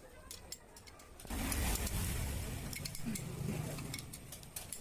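Light metallic clicks and clinks of tools and engine parts being handled, over a low rumble of background traffic that swells about a second and a half in.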